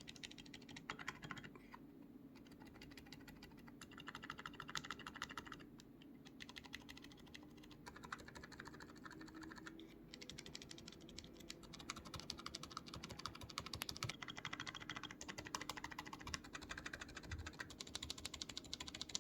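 Typing on a mechanical keyboard fitted with silent switches: soft, muted keystrokes in quick runs, with brief pauses between the passages.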